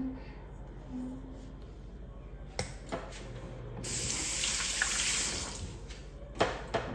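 Kitchen tap water running into a sink for about two and a half seconds, starting about four seconds in. A few sharp knocks, the loudest just after the water stops.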